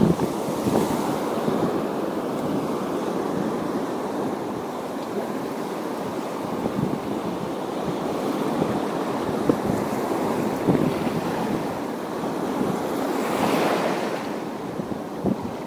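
Waves washing against the shore, mixed with wind buffeting the microphone, as a steady rushing noise; one wave surges louder near the end.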